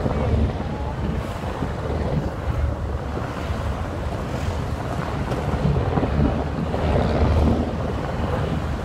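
Wind buffeting a phone microphone held by a rider clinging to the back of a moving jeepney, over a steady low rumble of engine and road noise.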